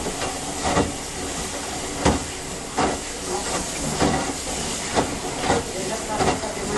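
Samsung washing machine agitating a load of clothes in soapy water: a steady churning hiss of water with irregular sloshing surges about once a second.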